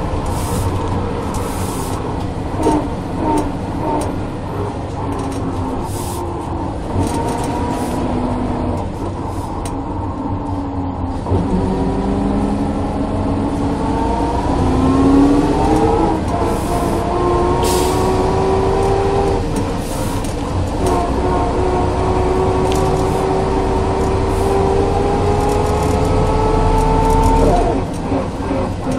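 Ikarus 415 city bus with a DAF LT 160 diesel engine and ZF 4HP 500 automatic gearbox under way. A loud gearbox whine rises with speed, falls back at each shift and climbs again several times, over a steady low engine rumble, and it drops away near the end.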